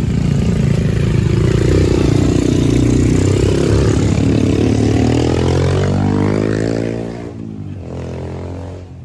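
Motor vehicle engines on a steep, rutted dirt climb: a motorcycle passes close while an MPV climbs under load. The engine pitch rises steadily for a few seconds, then the sound drops away about seven seconds in.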